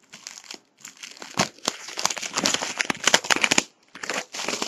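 Crinkly plastic wrapping crackling as it is torn and crumpled off a sealed box of trading cards: a dense run of sharp crackles, a short pause, then more crackling near the end.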